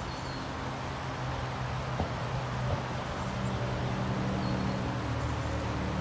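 Outdoor river ambience: a steady wash of water noise with a low, steady hum beneath it and a small tap about two seconds in.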